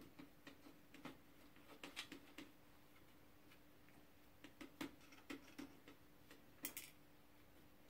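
Faint, irregular clicks and rattles of dry cat food and plastic in a tiered food-puzzle tower as a cat paws and noses at it, in short clusters with pauses between, over a faint steady hum.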